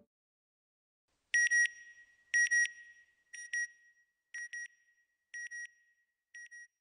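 Electronic beeper sounding six double beeps about a second apart, each pair fainter than the last.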